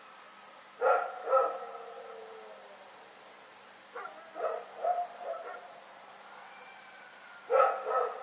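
A dog barking in bouts: a double bark about a second in, a run of shorter, quieter barks around the middle, and another double bark near the end.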